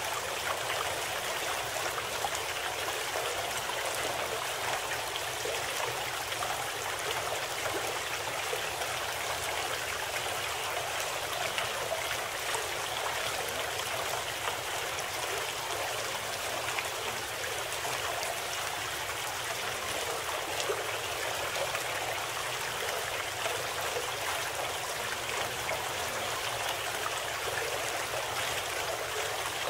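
Steady, unbroken sound of flowing stream water, the cover track of a subliminal audio program.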